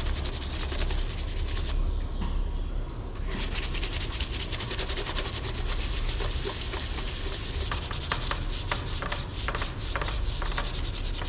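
Scrubbing and wiping a dirty milking-unit control panel clean: continuous quick rubbing strokes that let up briefly about two seconds in, over a steady low hum.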